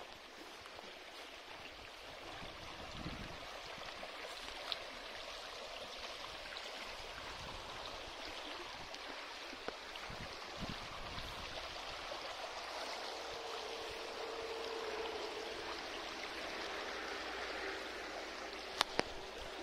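Small stream rippling over stones, a steady rushing flow. A few low thumps come in now and then, and two sharp clicks sound near the end.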